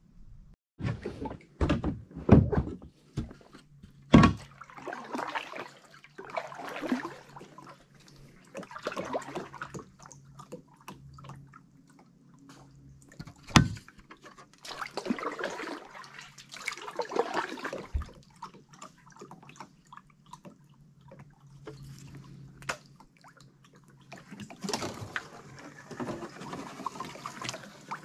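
Kayak paddle strokes: water swishing and splashing every couple of seconds, with a few sharp knocks.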